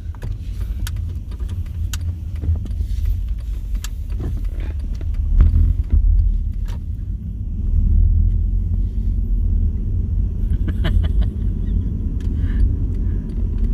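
Steady low road and engine rumble inside a moving car's cabin, with a few light clicks and rattles.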